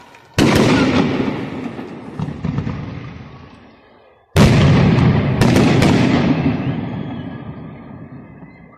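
Aerial firework shells bursting: two big booms about four seconds apart, each followed by a long fading rumble, with a few sharp cracks soon after the second.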